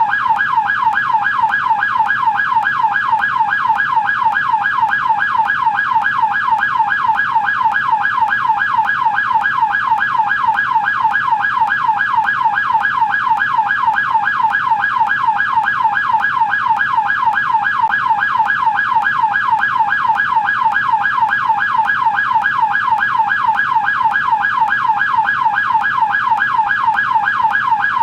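American police car siren in yelp mode: a fast, unbroken warble, each rapid sweep up and down in pitch repeating evenly, at a steady loud level.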